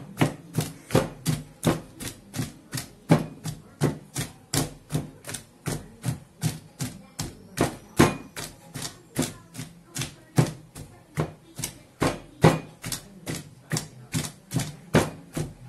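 Wooden pestle pounding boiled palm nuts in a mortar: a steady run of wet, dull strikes, about three a second. This is the pounding that loosens the pulp from the palm nuts for banga.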